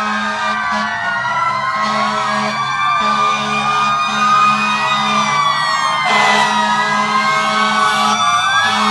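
Several fire engine sirens wailing at once and out of step, their pitches rising and falling across one another, with a lower tone pulsing on and off beneath them.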